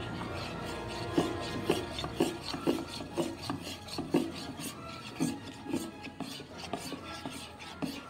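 Metal spoon stirring a thick blue glue and baking-soda slime base in a ceramic bowl, scraping against the bowl in repeated strokes about two a second.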